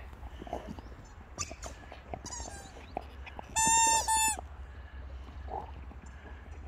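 A boxer dog chewing a squeaky hamburger toy: soft chewing clicks throughout, a fainter squeak a little over two seconds in, then two loud, high squeaks back to back about three and a half seconds in.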